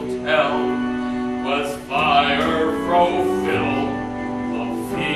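A song from a live stage musical: a singer with instrumental accompaniment, the voice rising and falling over held notes.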